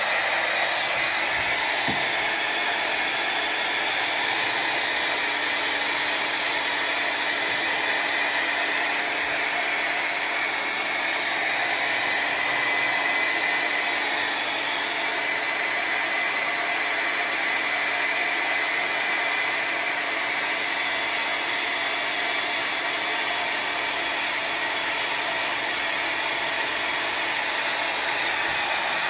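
Revlon handheld hair dryer running steadily, blowing air onto wet paint to dry it.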